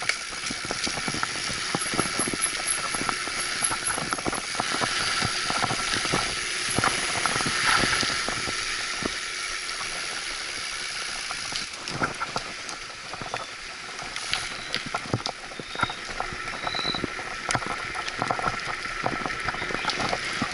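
Mountain bike rolling along a concrete path: a steady rush of tyre and wind noise, broken by frequent short rattles and knocks from the bike over bumps.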